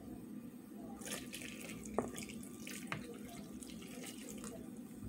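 Water poured from a plastic measuring cup into a bowl of dry pancake mix: a faint, steady splashing trickle that starts about a second in. Two light knocks come partway through.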